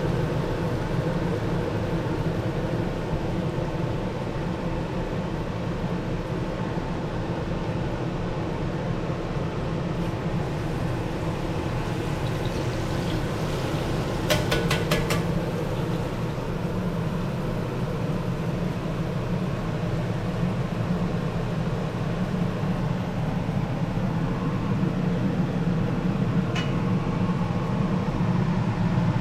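Battered cobia pieces frying in 350-degree vegetable oil in a Dutch oven, a steady sizzle, with a quick run of sharp clicks about halfway through.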